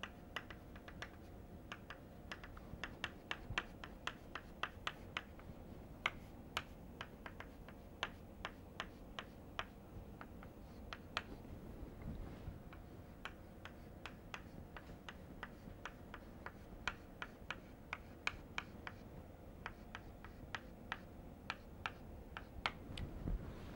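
Chalk tapping against a blackboard in quick, irregular clicks, a few a second with short pauses, as a dashed line is drawn.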